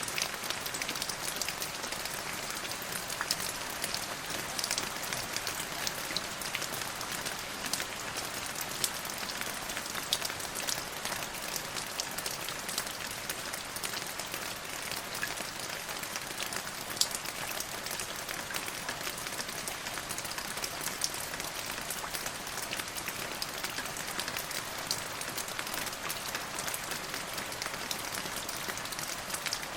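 Steady rain falling, with many individual drops ticking sharply through the constant hiss.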